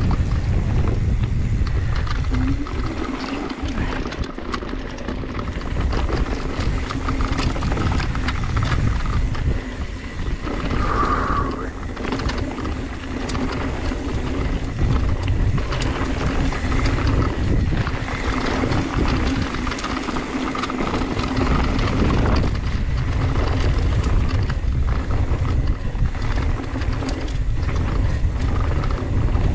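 Mountain bike descending a dirt singletrack: wind buffeting the camera microphone, tyres grinding over loose dirt and the bike rattling. A steady buzz from the rear freehub coasting runs through much of it and drops out briefly about two-thirds of the way through.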